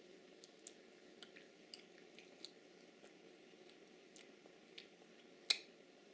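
A toddler eating pizza with her mouth open: scattered wet smacks and clicks of chewing and lips, with a sharper click near the end, over a faint steady room hum.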